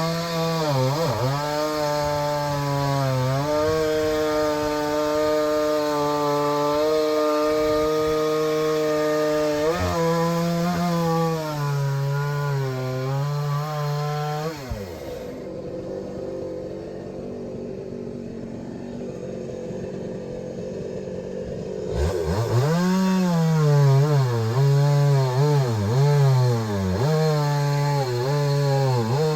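Two-stroke chainsaw cutting through logs, its engine pitch dipping and recovering again and again as the chain bites into the wood. About halfway through the engine drops to a lower, quieter running for several seconds, then revs up and cuts again.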